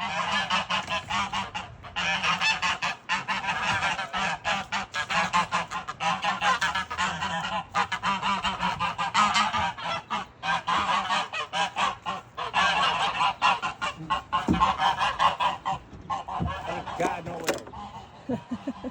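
A flock of domestic geese honking, many loud calls overlapping in rapid succession, thinning out to a few calls near the end.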